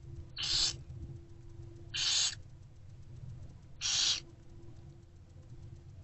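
Barn owlets' hissing begging calls: three short hisses about two seconds apart, over a low steady rumble.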